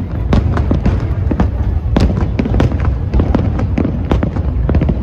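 Aerial fireworks display: a rapid, irregular string of bangs and crackles over a continuous low rumble.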